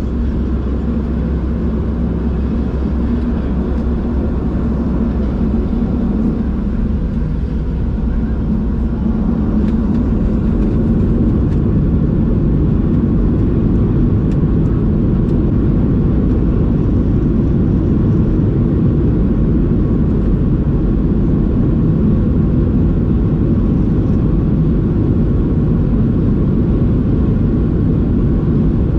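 Cabin noise inside a Boeing 737-700 with CFM56-7B turbofan engines: a steady engine hum, then about ten seconds in a louder, denser rumble that holds steady.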